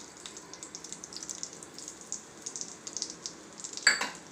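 Ghee sizzling and crackling in a small kadai as crushed black pepper, cumin and ginger fry in it, with one louder sharp snap near the end.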